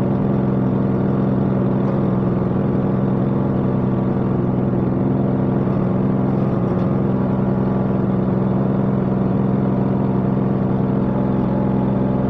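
A 6.5 hp Honda GX200-clone single-cylinder four-stroke gas engine running steadily at constant speed, belt-driving a table saw. The sound holds level throughout, with no change of load.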